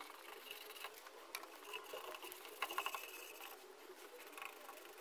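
Faint scratchy strokes of a paintbrush spreading thick red paint over welded sheet steel, with a few light taps of the brush against the metal.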